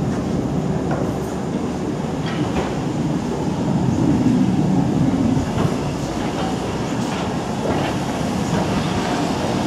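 Class 8F 2-8-0 steam locomotive running slowly toward the platform with a steady low rumble, its wheels giving a few scattered clicks over the rail joints.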